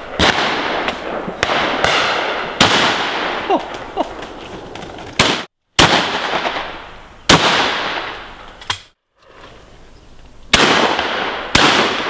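Shotguns firing at driven game birds: about eight shots in quick succession, some close and loud, others further off. Each shot is followed by a long rolling echo. The sound cuts out twice, briefly.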